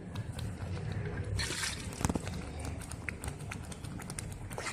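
Thick masala gravy simmering in an iron kadai, small bubbles popping in scattered ticks over a steady low rumble, with a sharper tick about two seconds in.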